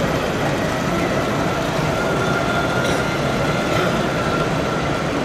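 O gauge model train running along the layout track, its coaches rolling past with a faint steady whine, over the even background noise of a busy exhibition hall.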